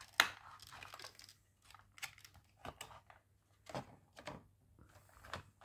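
Stiff clear plastic clamshell packaging being pulled apart and its pieces set down on a mat: a sharp click just after the start, then scattered lighter clicks and crinkles.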